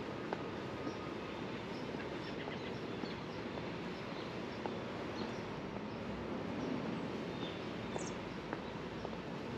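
Outdoor park ambience: a steady background hum with scattered small bird chirps, and one brief higher bird call falling in pitch about eight seconds in.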